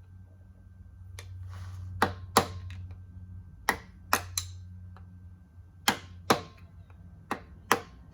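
Hammer blows on a driveshaft universal joint, about nine sharp ringing strikes, mostly in pairs a few tenths of a second apart, as the joint's parts are tapped into place.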